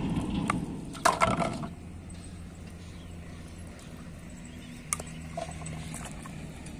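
Plastic bottles and caps being handled: sharp clicks and rustling about a second in, with another click near five seconds, over a faint steady low drone.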